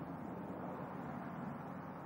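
Quiet, steady background hiss and low hum with no distinct sound: room tone.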